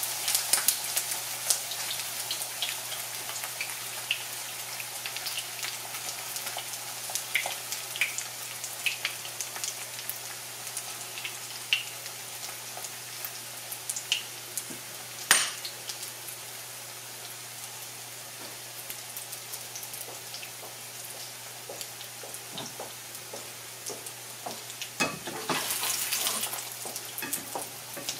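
Thin pancake batter sizzling and crackling in hot oil in a frying pan on high heat. There is one sharp click about halfway through and a short clatter of a fork against the pan near the end.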